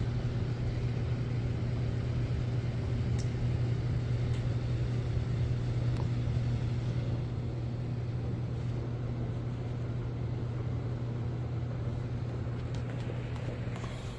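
Steady low hum with a faint even hiss under it, unchanging throughout: room tone.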